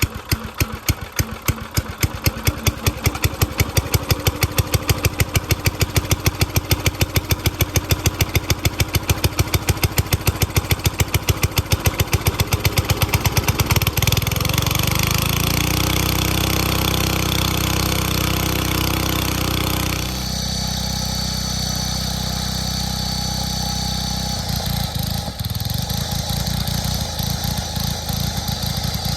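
Small gas engine on a homemade log splitter, just revived after sitting a year, running rough in a steady train of loud pops about five a second. About fourteen seconds in it smooths out into an even run, and the sound changes again around twenty seconds in, with a thin high tone for a few seconds.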